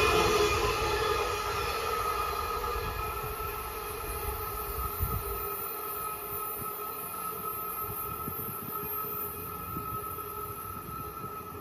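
Amtrak passenger train passing and receding into the distance, its rumble on the rails dying away over the first few seconds. A faint steady ringing tone lingers afterwards.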